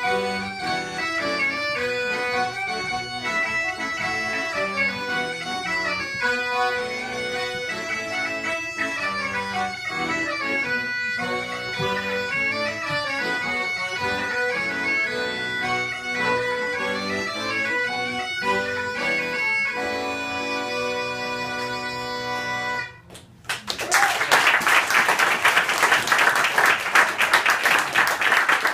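Bagpipes and accordion playing a folk tune in quick notes, ending on a long held chord about 20 seconds in. The music stops sharply, and after a brief gap the audience bursts into applause.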